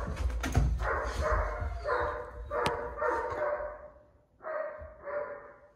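Doberman puppy barking repeatedly, each bark drawn out, with a short pause about four seconds in. There is low bumping in the first second or so.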